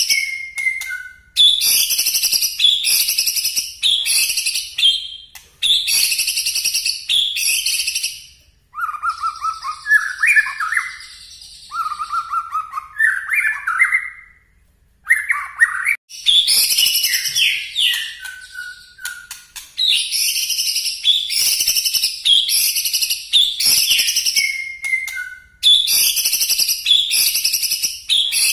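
White-rumped shama (murai batu) singing in rapid bursts of shrill, high-pitched repeated notes, the 'nembak' (firing) style of song. About a third of the way in the bird switches for several seconds to lower whistled phrases, then goes back to the high rapid bursts.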